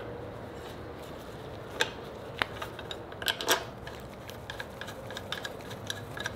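Scattered small clicks and clinks of metal parts as a motorcycle's stock turn signal indicator is handled and fitted onto its metal mounting bracket, the sharpest few about two and three and a half seconds in.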